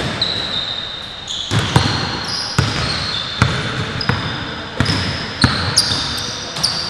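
Basketballs bouncing on an indoor gym court: sharp, irregular thuds roughly every half second to second and a half, with thin high-pitched squeaks between them.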